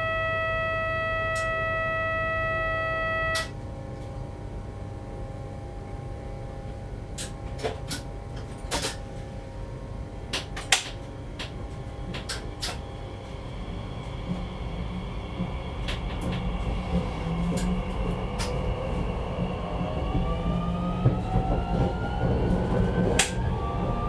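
A steady electronic warning tone made of several pitches sounds for about three seconds and cuts off abruptly, followed by scattered sharp clicks. Then the Z 50000 electric multiple unit's traction drive starts up: a rumble and a whine that rises steadily in pitch as the train pulls away and gathers speed.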